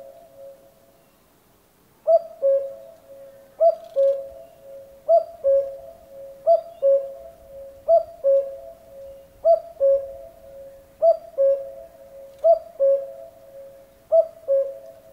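Common cuckoo calling its two-note "cu-ckoo", the second note lower than the first. After a short pause the calls begin about two seconds in and repeat steadily, nine times, about one every one and a half seconds.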